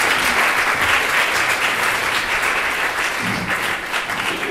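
Audience applauding: dense, steady clapping that eases slightly toward the end.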